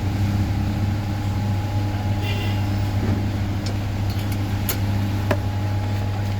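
Steady low electrical hum from repair-bench equipment, with a couple of faint clicks about four and five seconds in.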